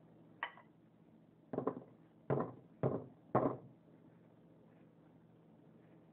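A block of ice with a toy frozen inside knocking against a bowl: one light click, then four short, hard knocks in quick succession.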